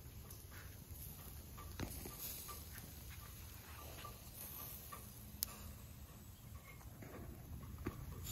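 Kebab skewers grilling over charcoal, with faint scattered crackles and pops and a few sharper clicks about 2, 5.5 and 8 seconds in, over a steady low rumble.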